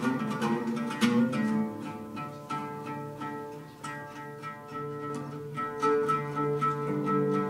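Solo oud played live, a quick stream of plucked notes ringing over repeated low notes.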